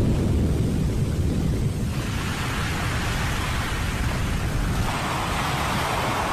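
Kilauea Volcano erupting: a steady deep rumble under a rushing roar, with wind on the microphone. The rushing grows louder about two seconds in.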